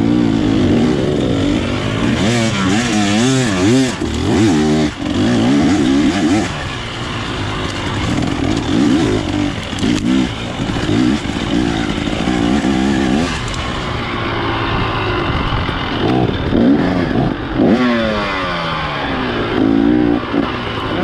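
Off-road motorcycle engine being ridden hard, its pitch rising and falling over and over as the throttle is opened and closed.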